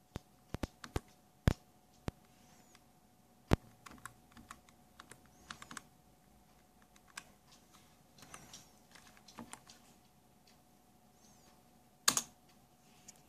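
Irregular sharp clicks and knocks from handling parts inside a Dell Dimension E310 desktop PC, with three louder knocks: about a second and a half in, about three and a half seconds in, and near the end.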